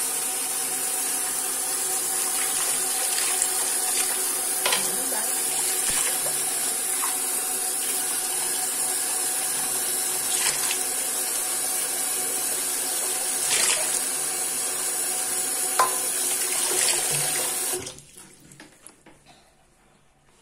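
Bathroom sink tap running steadily, with a few small knocks and clicks over it; it is turned off about eighteen seconds in, leaving only faint rustling.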